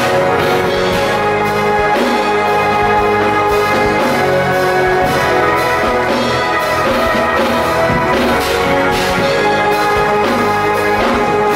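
Instrumental worship music: sustained, held chords with occasional percussion hits.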